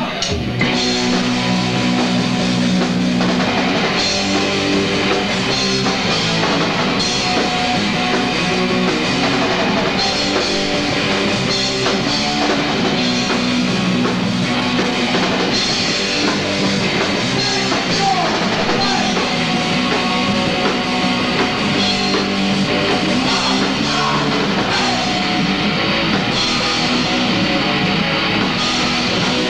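Hardcore punk band playing live: distorted electric guitar, bass and drum kit kicking in just after the start and running on loud and dense.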